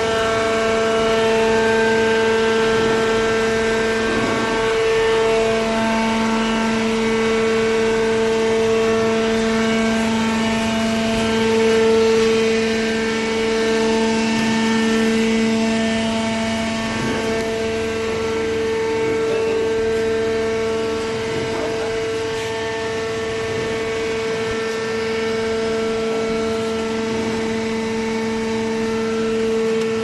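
The hydraulic power unit of a waste-paper baler, an electric motor driving the hydraulic pump, running with a steady, even hum-whine on two pitches.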